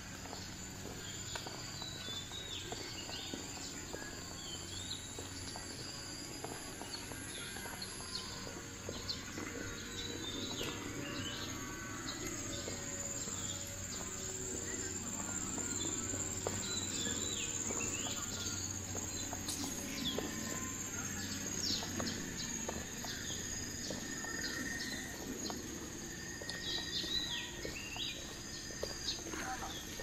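Birds chirping and calling on and off over the steady high drone of insects, with a low background hum.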